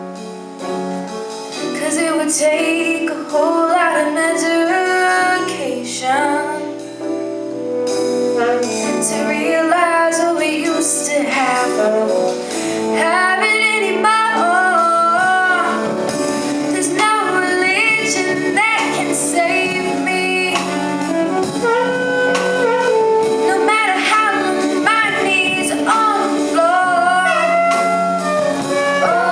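A live band of piano, bass, electric guitar, drums and saxophone playing a pop song, with a female lead singer singing over it and the saxophone playing along.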